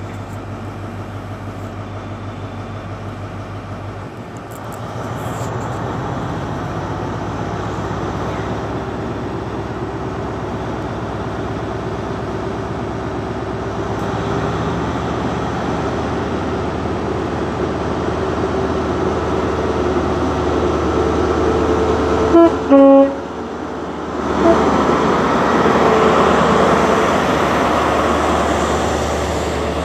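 Class 43 HST diesel power car running steadily at the platform. About two-thirds of the way through, its two-tone horn gives two short blasts, a high note then a lower one, and the engine then powers up as the train pulls away.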